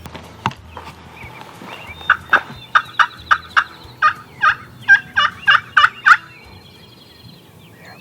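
Wild-turkey yelping: a loud run of about a dozen evenly spaced notes, roughly three a second, that starts about two seconds in and stops about six seconds in.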